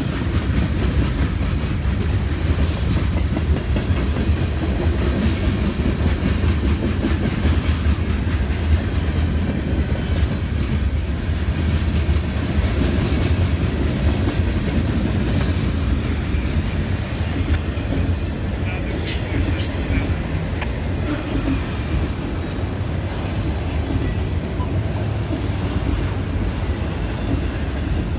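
Freight cars rolling past close by: a steady low rumble of steel wheels on rail with clickety-clack over the rail joints. Short high wheel squeals break in now and then, mostly in the second half.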